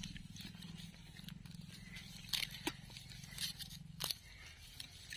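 Faint, scattered scrapes, crunches and clicks of a metal blade and fingers knocking dry soil off a freshly dug elephant foot yam and tearing through its roots, a few sharper ones in the middle. A steady low hum runs underneath.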